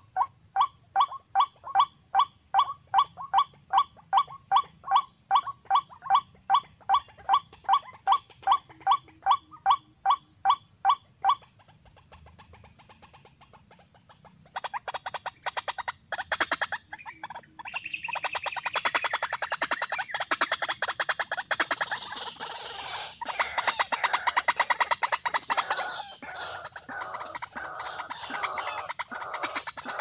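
Watercock calls: a steady series of hollow, evenly repeated notes, about two and a half a second, for some eleven seconds. After a short pause, a faster, denser rattling chatter starts a few seconds later and carries on.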